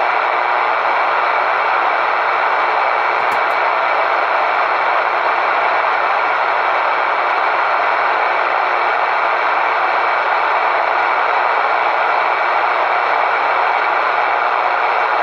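CB radio's speaker putting out a steady rush of static on an open channel, with a brief click about three seconds in.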